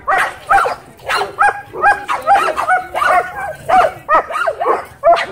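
A dog barking over and over in quick, high-pitched barks, about three a second.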